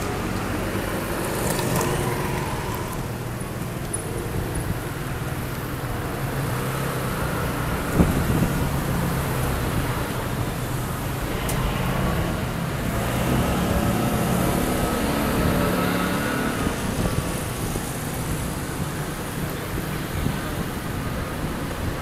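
Street traffic passing: scooters and cars driving by, their engines swelling and fading as each one passes. There is one sharp knock about eight seconds in.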